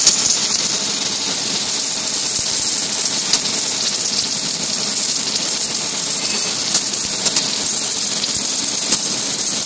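Submerged arc welding head running a seam on steel plate under a bed of flux: a steady hiss with a few sharp crackles now and then.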